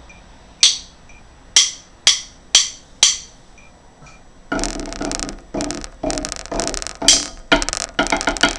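Drum sticks clicking a count-off at 120 beats per minute, the last four clicks half a second apart. About four and a half seconds in, a fast, dense tenor drum passage starts, played with sticks on a set of practice pads.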